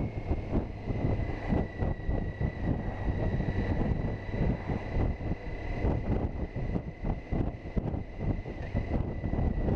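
Wind buffeting the microphone of a motorcycle riding at road speed, over the rumble of engine and road, with a thin steady high whine.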